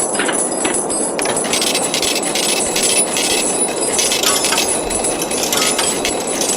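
Green noise: a loud, steady hiss centred in the middle frequencies, with irregular faint high-pitched clicks and ticks over it.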